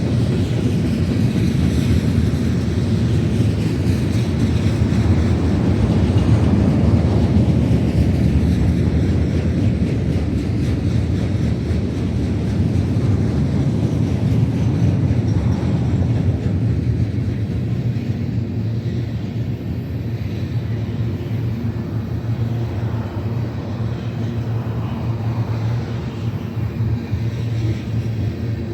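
Long freight train rolling past: a steady rumble of railcars on the track, easing slightly in the second half.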